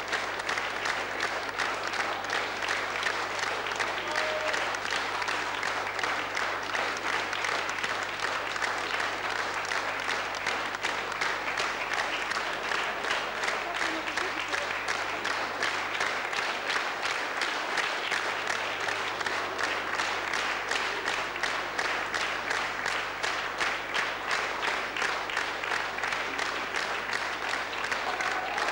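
Concert-hall audience applauding at length, with many hands clapping in a regular, steady beat.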